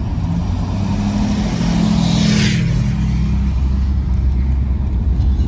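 A car being driven, with steady engine and road rumble heard from on board; an engine tone holds for the first three seconds, and there is a brief rushing whoosh about two seconds in.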